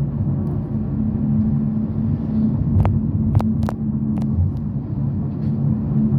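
A vehicle engine running steadily, a continuous low rumble with a steady hum. A few short sharp clicks come in the middle.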